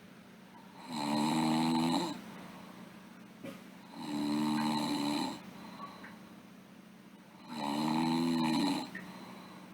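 A sleeping girl snoring: three long, rattling snores about three and a half seconds apart, each lasting just over a second, with much quieter stretches between them.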